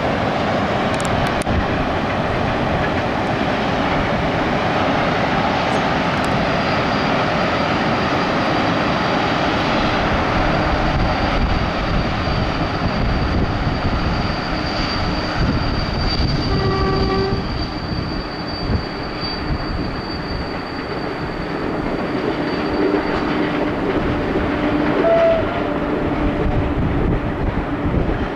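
Freight trains hauled by ET22 electric locomotives passing each other: a steady rumble and clatter of wagons rolling by. A thin, high-pitched wheel squeal runs through the middle, and a short horn sounds about halfway through.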